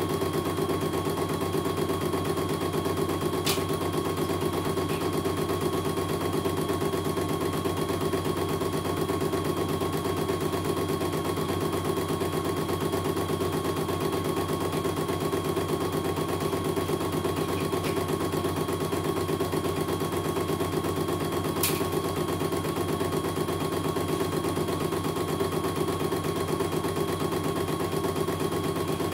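CNY computerized embroidery machine stitching out a design: a fast, steady rattle of the needle going up and down as the hoop moves, with two short sharp ticks, one a few seconds in and one about two-thirds of the way through.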